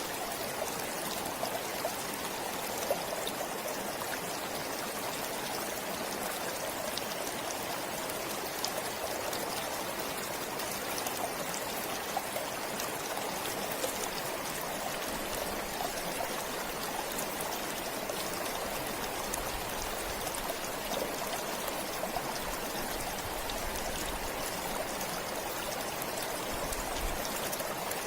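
Forest stream flowing steadily, a continuous rush of water with fine splashing and trickling.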